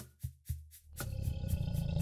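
Background music's drum beat of deep kick-drum hits and high ticks. About halfway through it gives way to a dense, low rumbling roar that keeps going.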